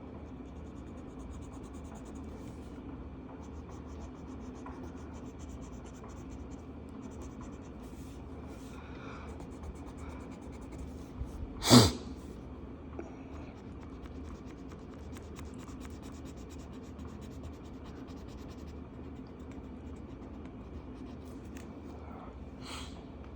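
Marker tip rubbing on paper in quick back-and-forth colouring strokes, over a steady low hum. A single sharp knock, the loudest sound, comes about halfway through.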